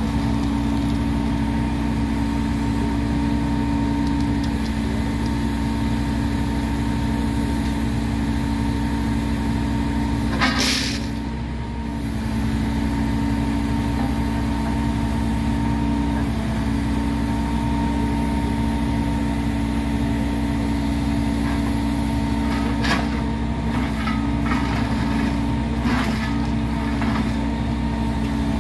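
The engine of heavy track-work equipment running steadily, with a loud burst of hissing about ten seconds in and a few sharp knocks near the end.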